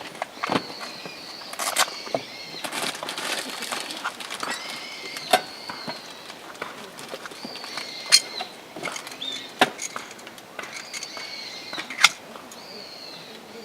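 Birds calling with repeated high whistled notes, over scattered sharp clicks and knocks, the loudest about eight, nine and a half and twelve seconds in.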